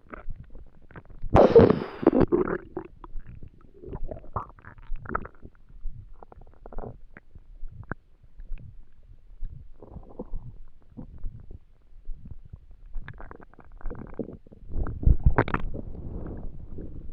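Empty human stomach growling and gurgling in irregular bursts, with a loud gurgle about a second in and another louder run of gurgles near the end: hunger rumbling of an empty stomach.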